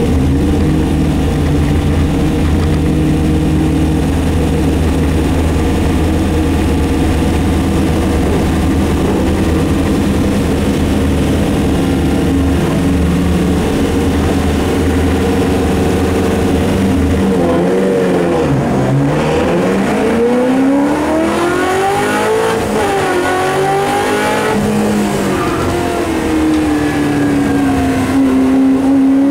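Shelby Mustang GT350R's V8 race engine heard from inside the cabin, held at steady high revs for about seventeen seconds, then the revs fall sharply and rise and fall several times as the car goes into the turns.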